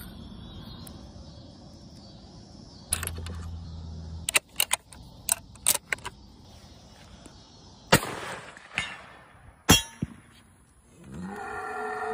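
Metallic clicks of a rifle being handled and loaded, then two loud sharp bangs a couple of seconds apart, the second one the louder. Near the end a cow starts mooing.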